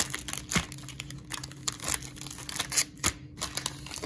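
Sealed Bowman Draft jumbo trading-card packs being handled and stacked, their wrappers crinkling in irregular bursts.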